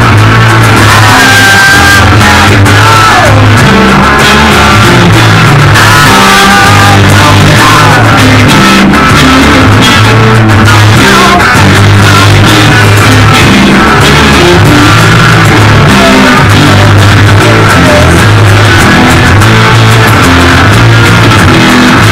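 Rock band rehearsing: electric guitars and an acoustic guitar played loudly together over drums, with a heavy low end.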